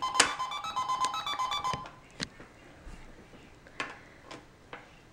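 Toy cash register giving an electronic beeping tune for about two seconds, followed by a few separate plastic clicks.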